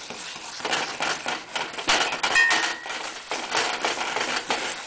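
A metal fork stirring and scraping around a stainless steel pot of thick soy sauce and brown sugar, with irregular clinks against the metal and one brief ringing clink about two and a half seconds in.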